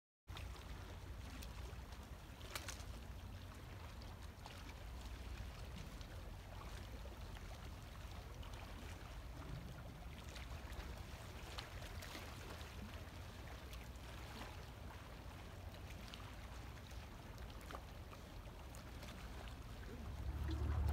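Waterside night ambience: a steady low rumble with faint water sounds and a few small ticks, growing louder near the end.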